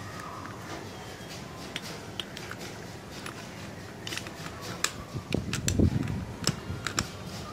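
Steel hand tools clicking and knocking against a Honda CD-70 engine's clutch assembly as its lock nut is tightened with a clutch-holder tool and tube wrench. It starts as a few light clicks and turns to denser clicks and a few heavier knocks from about four seconds in.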